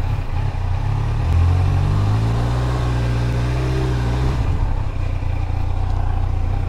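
Kawasaki Z900 inline-four engine running steadily at idle. From about a second and a half in, its pitch climbs gradually for a few seconds, then drops back just past four seconds in.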